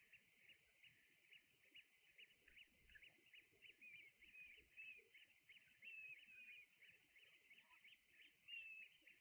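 Faint calling of a flock of birds: a quick run of short chirps, several a second, with a few longer, flat-pitched notes in the middle and near the end.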